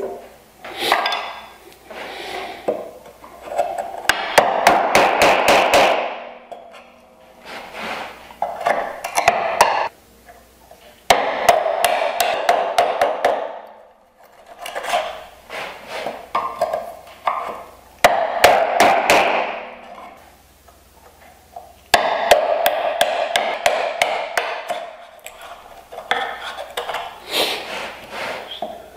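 Mallet striking a wood chisel, chopping out the waste of an open mortise in a wooden rail. The blows come in runs of quick strikes a couple of seconds long, separated by short pauses.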